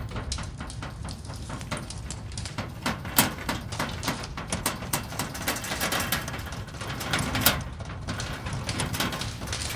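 Earthquake rumbling sound effect: a continuous deep rumble overlaid with many sharp crackles and rattles, with the loudest cracks about three seconds and seven and a half seconds in.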